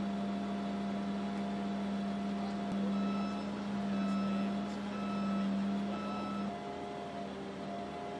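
Heavy machinery, a crane, running with a steady low drone, while an electronic warning alarm beeps on and off about once a second from about three seconds in. Near the end the beeps change to a lower, two-tone pattern.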